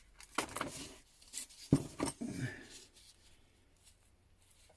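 Metal hand tools clinking and knocking together as they are handled and picked out of a box: several separate knocks in the first two and a half seconds, the loudest just under two seconds in.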